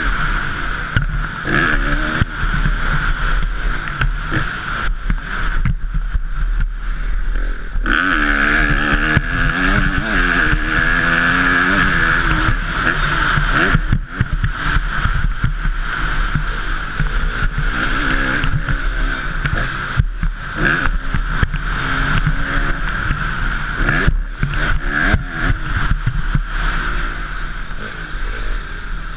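Honda CRF250 dirt bike's single-cylinder four-stroke engine being ridden hard, revving up and dropping back again and again as the throttle opens and closes, heard from the rider's helmet. The revs climb in a long rising run about eight seconds in.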